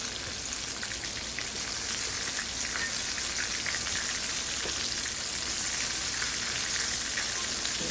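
Flour-dusted king fish frying in hot oil in a pot: a steady sizzle with small scattered crackles.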